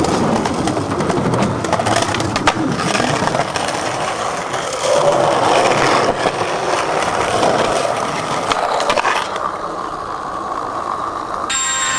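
Skateboard wheels rolling loudly on smooth paving as the rider pushes, with a few sharp clacks of the board hitting the ground, the strongest about two and a half seconds in. Music with steady ringing tones comes in near the end.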